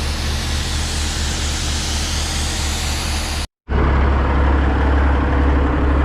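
Case IH combine harvester running steadily, a low engine drone with a broad machinery rush over it. The sound cuts out completely for a moment about three and a half seconds in, then comes back louder.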